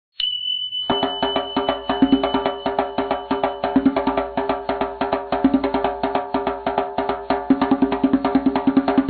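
Background music with a fast, clicky, wood-block-like percussive beat, which comes in about a second in. Just before the beat, a single high ringing tone starts and fades out over a few seconds.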